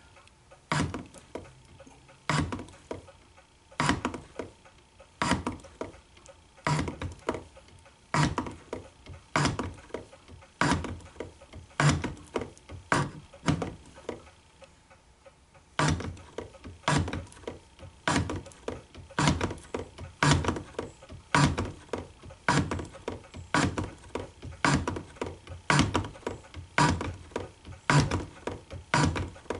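Shop-built hand shaper worked by hand, its ram stroking back and forth as the tool bit takes passes in a 1018 steel block to deepen a key slot. Each stroke gives a pair of sharp clicks, about one stroke every second and a half, with a short break a little before halfway.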